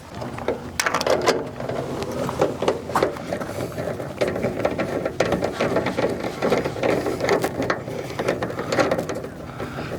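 Power screwdriver running, backing screws out of an Attwood RV furnace's plastic cover, with a rattling, clicking whir.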